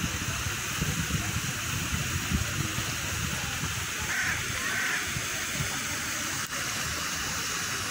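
Steady rush of fountain water with a low, uneven rumble of wind on the microphone; a bird gives two short calls about four seconds in.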